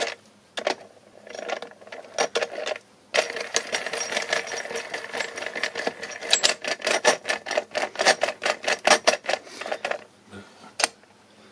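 Gear train of a scratch-built, open-cased transaxle gearbox being turned over, its metal gear teeth meshing with a fast clicking clatter. The box is still dry, without oil, and has noticeable drag. A few scattered clicks come first, then a quick continuous clatter from about three seconds in until near the end.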